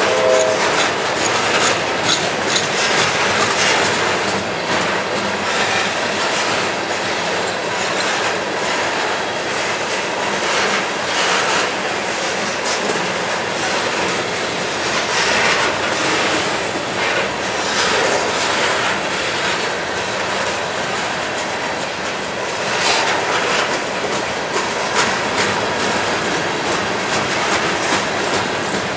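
Ballast hopper cars of a Herzog ballast train rolling past, a steady rumble of rail cars with their wheels clattering on the track.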